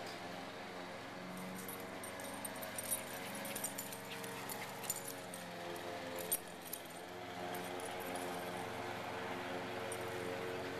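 Small metal tags jingling and clinking in quick irregular bursts as two puppies wrestle, from about a second and a half in until about seven seconds in. A steady low hum runs underneath.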